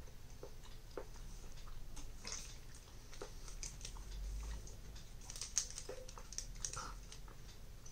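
Faint crackling and clicking as a small plastic bottle is handled and its cap twisted open, with a sharper click a little past halfway, and quiet chewing.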